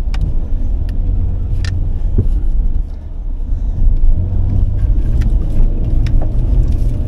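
Dacia Duster 4x4's 1.5 dCi diesel engine pulling up a steep, muddy forest climb, heard from inside the cabin: a steady low drone with scattered knocks and thuds over the rough ground. The drone dips briefly about three seconds in, then picks up again.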